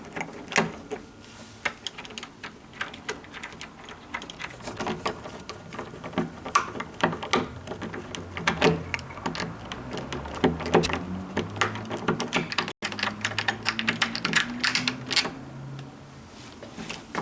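Rapid small clicks and clinks of metal hardware as the two screws are taken out of an old door handle, with a low hum partway through.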